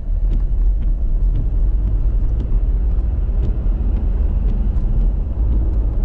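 Steady low rumble of a car driving on a wet road, heard from inside the cabin, with faint scattered ticks over it.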